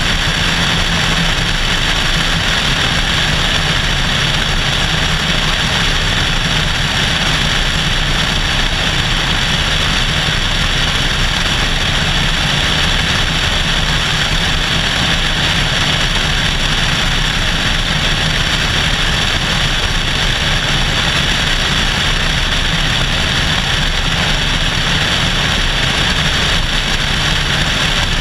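Cessna 172SP's four-cylinder Lycoming engine and propeller running steadily in cruise, heard from a camera mounted outside on the tail, under a steady rush of wind.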